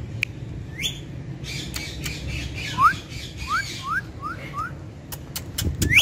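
A green ring-necked parrot calling: a short rising squawk about a second in, then a quick run of five short rising notes around the middle, and another rising call near the end. Sharp clicks come in the last second, over a steady low background rumble.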